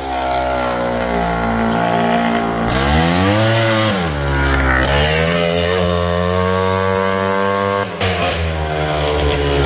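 Rokon Cobra 340 MX motocross bike's two-stroke engine running under way. It revs up and back down about three seconds in, then holds a fairly steady pitch, with a brief break about eight seconds in.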